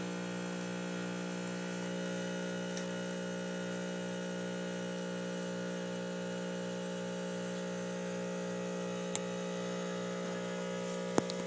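Easy Cup 300 espresso machine's pump humming steadily while it pushes water through the group head to brew an espresso shot. Two brief clicks near the end.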